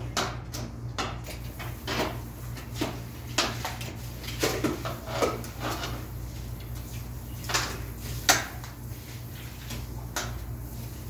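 A string of irregular sharp knocks and clacks of hard objects, the loudest about eight seconds in, over a steady low hum.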